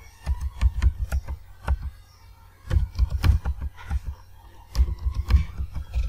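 Computer keyboard keystrokes and mouse clicks as numbers are typed into fields, an irregular string of short sharp clicks with dull low thumps in two clusters near the middle and toward the end.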